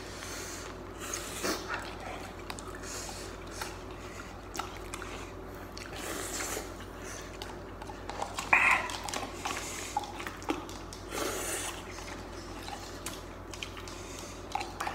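Sipping and slurping of broth from instant noodle cups, with light handling noises on the cups. There is one louder sound about eight and a half seconds in.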